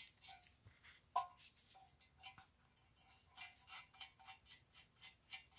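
Faint small metallic clicks and clinks, several a second, as nuts are spun by hand onto the steel studs of a valve spring compressor, with one louder clink that rings briefly about a second in.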